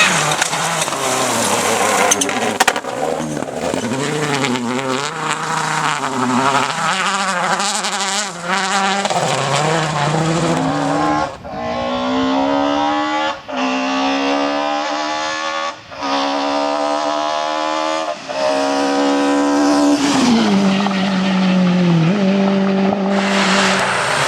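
Rally car engine driven hard: revs wavering at first, then climbing up through the gears with four quick shifts a couple of seconds apart, and dropping in two steps near the end as it comes off the throttle and shifts down.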